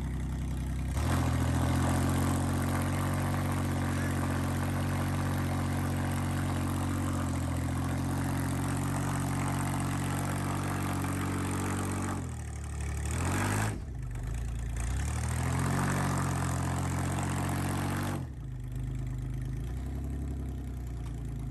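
Suzuki Samurai's four-cylinder engine pulling under throttle while rock crawling. The revs rise about a second in and hold steady for roughly ten seconds, dip and climb again twice, then drop back to idle near the end.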